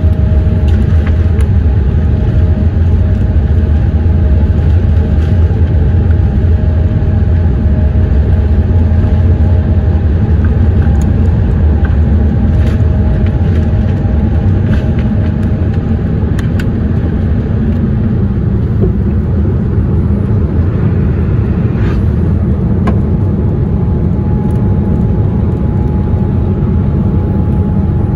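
Boeing 787's GE GEnx turbofans at takeoff power, heard inside the cabin over the wing through the takeoff roll and liftoff: a loud, steady deep roar and rumble with a faint steady tone above it. It is scattered with a few light knocks and eases slightly about two-thirds through.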